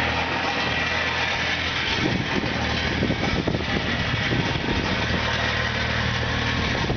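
Bobcat skid-steer loader's engine running steadily, with a stretch of irregular clatter about two to four seconds in.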